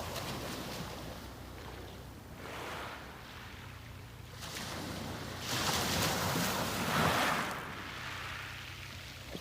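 Sea waves breaking and washing up the beach: a quieter wash, then a bigger wave swells in about halfway through and is loudest a second or two later before ebbing.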